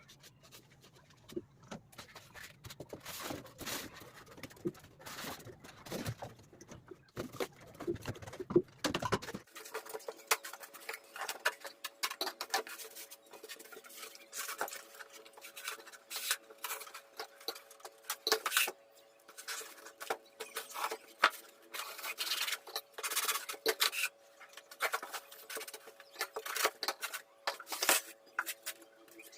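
Irregular clicks, taps and scrapes of small parts and tools being handled. About a third of the way in, a steady hum of several tones starts and runs underneath.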